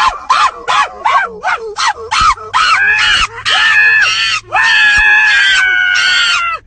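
A dog yipping rapidly, about three short falling yips a second, then breaking into longer howls; the last howl is held for about two seconds and slides slightly down in pitch.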